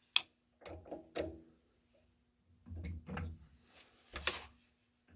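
Hand tools, an adjustable wrench among them, being picked up and set in place on a workbench: a sharp click, then several clunks and knocks, and another sharp click about four seconds in.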